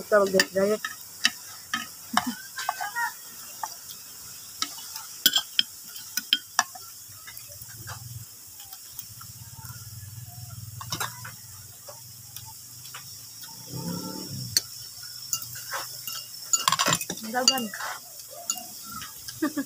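Metal spoon and fork clinking and scraping on a plate while eating, as scattered sharp clicks.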